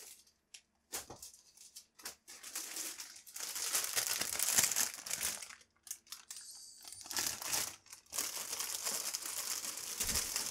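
Clear plastic bags of model-kit parts crinkling as they are picked up and shuffled about by hand, in bursts with a few brief pauses.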